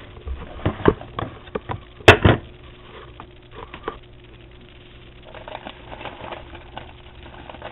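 Camera handling noise: a series of knocks and bumps as the camera is moved and propped up against a box and the paper popcorn bowl, the loudest double knock about two seconds in, followed by faint rustling.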